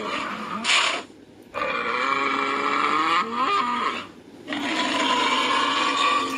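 Bull bellowing, played back from a tablet: the end of one call, a short breathy snort, then two long, drawn-out bellows with a gap between them.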